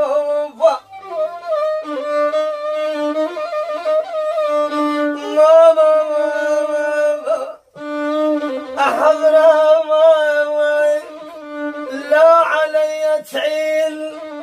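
Violin playing a slow, ornamented Arabic melody with sliding notes and vibrato over a lower held line. It breaks off briefly a little past halfway, then resumes.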